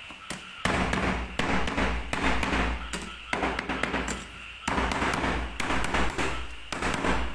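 Chinese cleaver chopping a stalk of lemongrass on a cutting board: a rapid, irregular run of knocks and thuds of the blade hitting the board.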